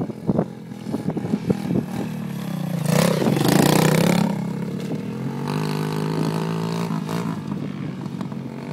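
Dirt bike engine coming closer and getting louder, loudest as it passes close by about three to four seconds in. Its note then drops slightly, and it holds steady and fades as the bike rides away.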